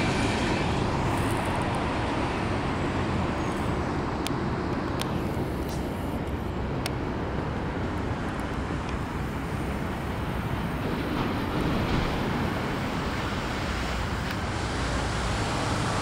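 Steady low rumble of a moving vehicle, with a few faint ticks.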